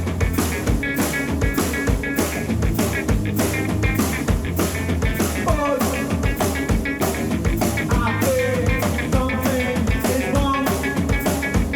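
Grunge/noise-rock band playing live: a distorted Fender Telecaster electric guitar over a drum kit keeping a steady, fast beat with crashing cymbals. A few sliding guitar notes come in about halfway through.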